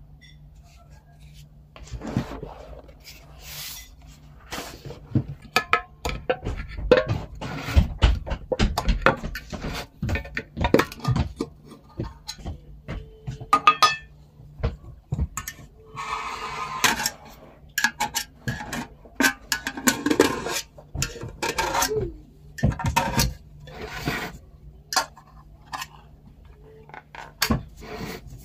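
A run of clinks, knocks and scrapes from a metal tin of shoe glue being handled and worked with a tool, as the skin on the glue's surface is pried up. It starts about two seconds in, with a few longer scraping noises in the middle.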